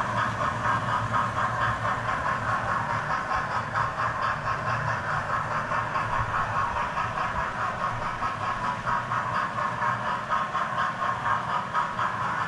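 Several OO gauge model trains running on a layout: wheels clicking along the track in a fast, even rhythm over a steady low motor hum.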